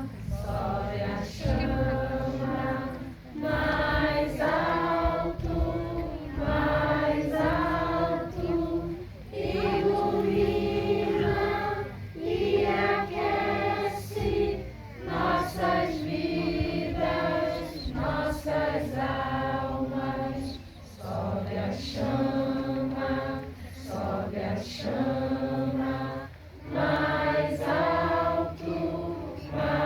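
A group of voices singing a song together in unison, in sung phrases a few seconds long with short breaths between them.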